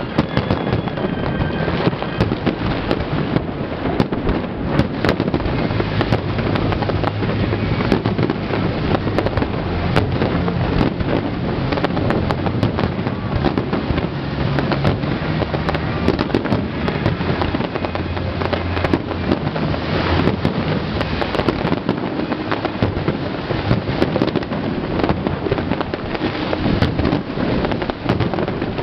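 Aerial fireworks shells bursting in rapid, unbroken succession, a dense mix of booms and crackling. Music plays underneath.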